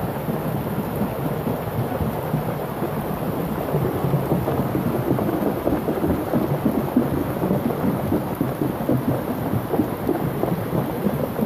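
Muddy flash-flood water rushing through a street in a steady, dense torrent, with rain falling. The rush grows a little louder about four seconds in.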